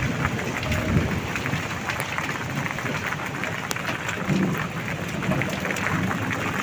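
Heavy rain falling, a steady hiss of drops with scattered sharper taps.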